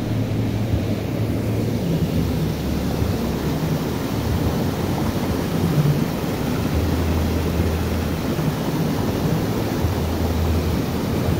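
Fast-flowing stream rushing and churning over a small drop into white water: a steady, deep rushing sound.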